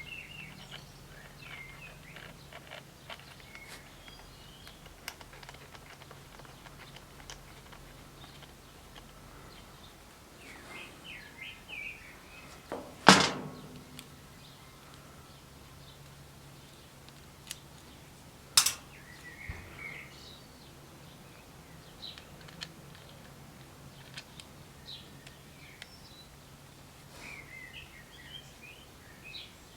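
Small birds chirping now and then over a faint low hum, with two sharp knocks near the middle, about five seconds apart; the first is the loudest.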